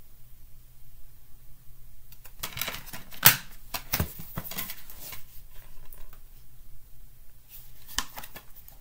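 Plastic DVD case and disc being handled: a run of clicks and rustling, with two sharp plastic snaps about three and four seconds in, then more clicking near the end.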